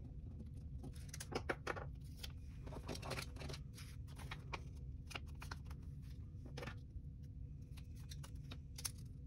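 A pen scratching in short strokes on a paper sticky note, with light rustles and small taps as the note is handled, over a faint steady low hum.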